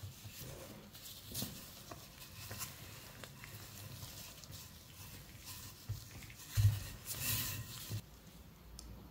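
Wooden rolling pin rolling back and forth over floured dough on a baking mat: soft irregular rumbling and light knocks, with one louder thump about two-thirds of the way through.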